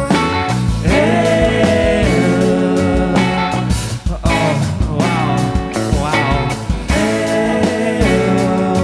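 Rock band playing live, an instrumental passage with gliding, bending pitched lines over bass and a steady drum beat.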